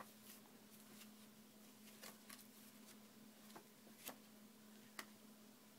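Near silence with a faint steady hum and a few faint, short clicks and rustles of paper pages as a picture book is handled and its pages are turned.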